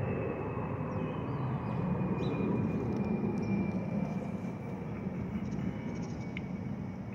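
Jet airliner passing overhead in its climb after takeoff: a broad engine rumble with a thin high whine that slowly falls in pitch. It swells to its loudest about two to three seconds in, then fades.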